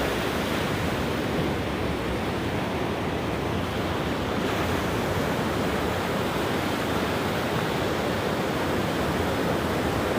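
Ocean surf washing onto a beach: a steady, even rush of waves.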